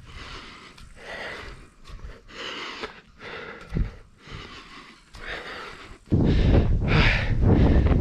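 A person breathing hard, quick puffs in and out about once a second, while climbing a steel ladder. About six seconds in, a sudden loud low rumble on the microphone comes in under the breaths.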